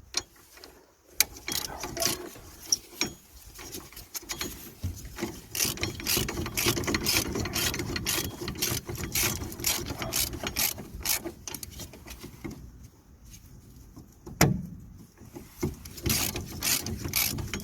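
Hand socket ratchet clicking in quick runs as it turns in the bolts of a new rear wheel bearing hub, with a short lull and a single knock near three-quarters of the way through before the clicking resumes.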